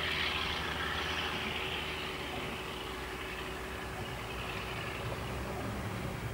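Diesel locomotive engine running as the locomotive moves off, a steady low drone whose brighter upper noise fades over the first couple of seconds.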